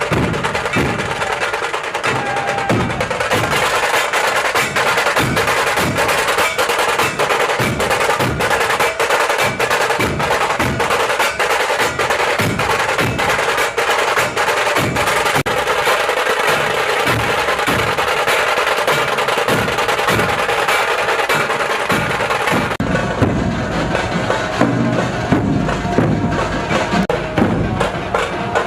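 Background music driven by fast, steady percussion; about 23 seconds in, the music changes to a fuller section with heavier bass.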